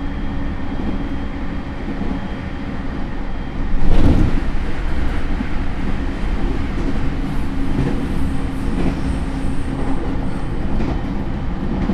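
Onboard running noise of a JR E231 series electric train's motor car with Hitachi IGBT inverter drive: a steady rumble of wheels on rail with a few steady tones over it. About four seconds in a sudden loud rush of noise swells up and fades back into the running sound.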